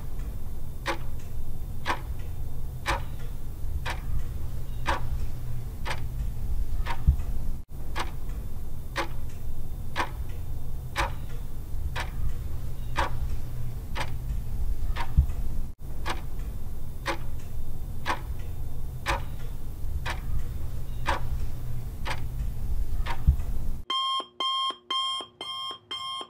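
Countdown timer sound effect ticking about once a second over a steady low hum. Near the end it switches to a rapid electronic alarm beeping as the countdown nears zero.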